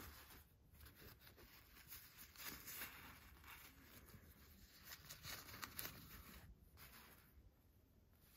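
Faint, irregular rustling of shiny nylon sprinter shorts being handled and turned over by hand.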